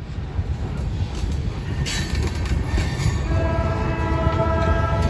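Freight cars rolling past close by: a steady low rumble of wheels on rail, growing louder, with a few clacks. From about three seconds in, a steady high-pitched squeal of steel wheels against the rail.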